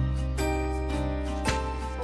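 Background music: bell-like notes struck twice over held low tones.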